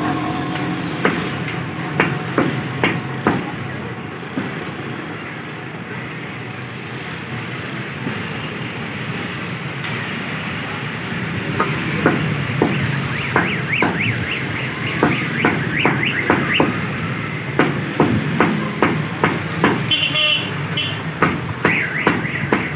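Heavy meat cleaver chopping raw chicken on a wooden butcher's block. A few sharp chops are followed by a pause of several seconds, then rapid chopping at about two chops a second, over a steady background din.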